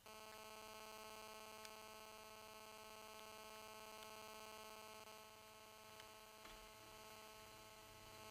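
A faint, steady electrical buzz with a pitched hum that switches on suddenly, with a few faint ticks over it.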